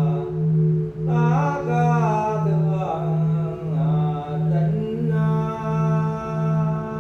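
Buddhist temple chant music: a voice chants a melody over a steady low drone that pulses a little under twice a second, with the chanting entering about a second in.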